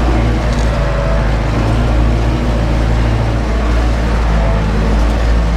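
Ursus 914 tractor's diesel engine running steadily under heavy load, heard from inside the cab while it pulls a disc harrow through heavy fallow ground.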